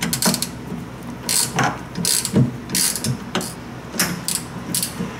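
Hand ratchet clicking in short bursts, about every half second, as it backs out an already-loosened 5/8-inch engine mount bolt.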